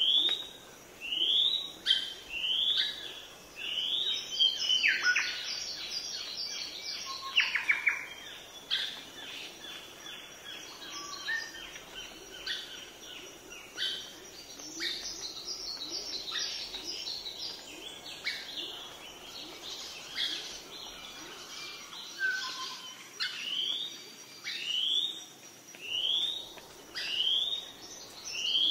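Small birds chirping, one repeating a short rising whistled note about once a second, with other birds' chirps and trills crowding in through the middle stretch.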